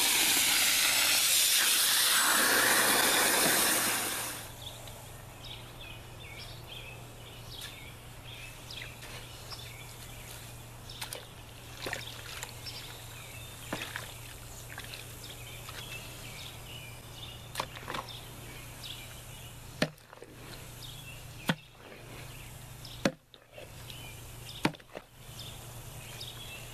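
Garden hose spraying hard into a plastic wheelbarrow of dry clay kitty litter, a loud hiss that stops about four seconds in. Then a long-handled fork scrapes and chops through the wet litter, with several sharp knocks near the end.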